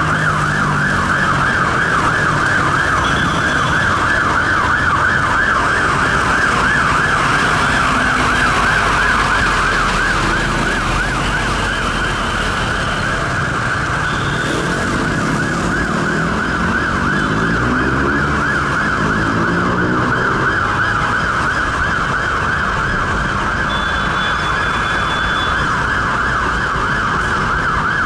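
Several emergency-vehicle sirens from a police convoy and fire engines sound at once, their fast warbling tones overlapping. A deeper tone glides down in pitch several times about halfway through, over the noise of traffic.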